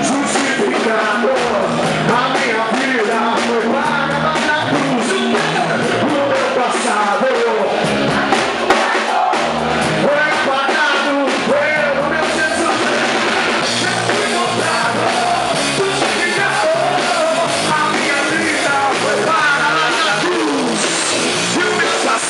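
Loud live worship music: a band playing with voices singing over it.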